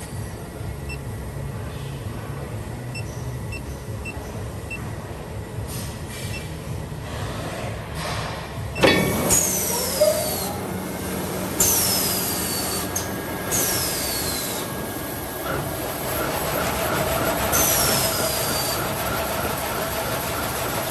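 Automatic coreless toilet-roll band saw cutting machine running: a steady low hum, then about nine seconds in a motor winds up with a rising whine, followed by four short high whines that fall in pitch, a couple of seconds apart, over steady machine noise.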